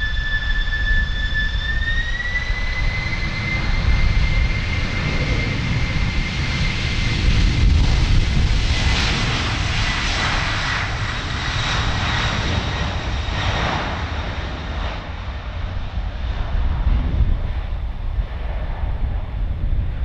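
Boeing 767-300 jet engines at takeoff thrust during the takeoff roll and lift-off: a high whine from the engines that rises in pitch about two seconds in, over a heavy low rumble, growing noisier in the middle as the aircraft passes.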